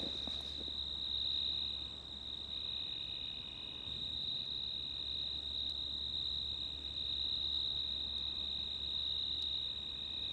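Crickets trilling steadily in a continuous high-pitched drone, with a faint low hum underneath.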